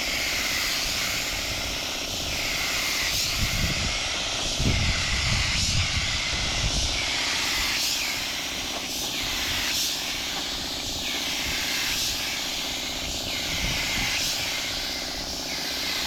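Steady motor noise, like a running power tool or engine, with a whooshing sweep about once a second and some low rumbling partway through.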